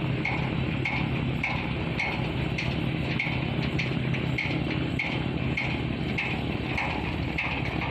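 Boat diesel engine running steadily: a constant low drone with a light, regular ticking about twice a second.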